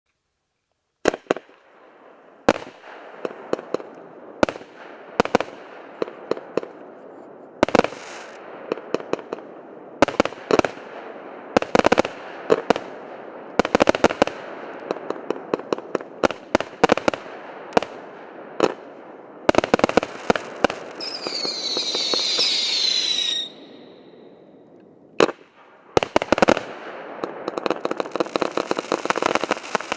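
A 96-shot, 0.8-inch consumer fireworks cake firing: repeated launch thumps and shell bursts, starting about a second in. About twenty-one seconds in, a cluster of whistles falls in pitch for a couple of seconds. Near the end comes dense crackling.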